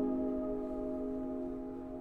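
Background music: a held chord ringing on and slowly fading after a strummed guitar passage.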